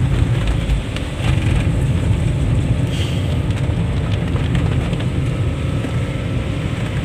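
Car cabin noise while driving on a wet road: a steady low rumble from the engine and tyres.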